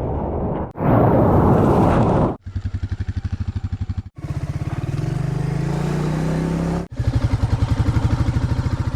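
Motorcycle engine in a run of short cut-together clips: running with an even rapid pulse, rising in pitch as it accelerates between about four and seven seconds in, then pulsing steadily again. Near the start comes a short burst of loud rushing noise.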